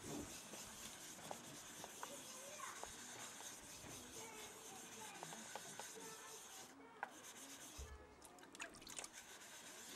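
Steel knife blade rubbing on a wet 6000-grit King Japanese water stone in circular, rocking strokes, sharpening a convex edge. It is a faint, soft wet scraping with a few light clicks.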